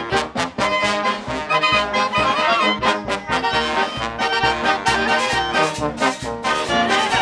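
Brass band playing a Peruvian corrido huarochirano, trumpets and trombones over a steady, even beat.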